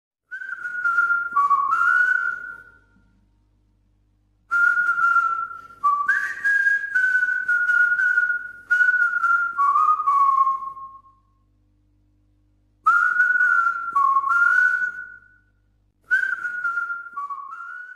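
A person whistling a simple tune in four short phrases with pauses between them, the notes stepping up and down.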